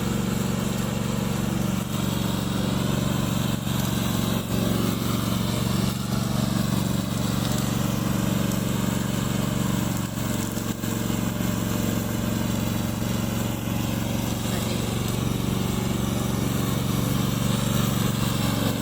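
Remote-controlled lawn mower's engine running steadily at a constant speed, a continuous low drone.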